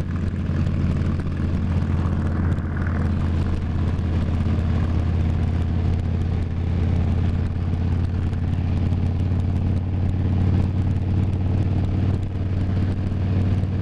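Harley-Davidson touring motorcycle's V-twin engine running steadily at highway cruising speed, with wind and spray from the wet road.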